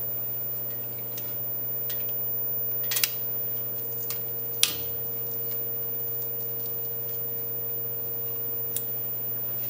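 A pocketknife blade prying up and peeling off a freshly cut sheet of gasket material, giving a few short clicks and scratches, the sharpest about four and a half seconds in. Under it runs a steady hum.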